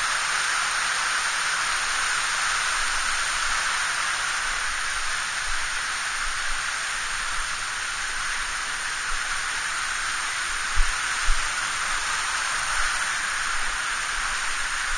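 Steady rush of a mountain headwater stream running high after rain, a dense even hiss with two soft low thumps about eleven seconds in.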